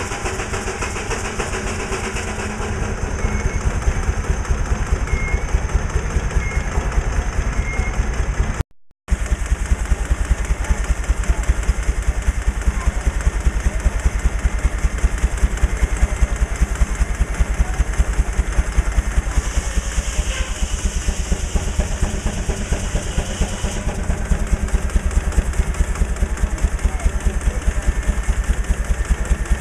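Steam traction engine running, its exhaust beating in a fast, even rhythm. A hiss joins in for a few seconds past the middle.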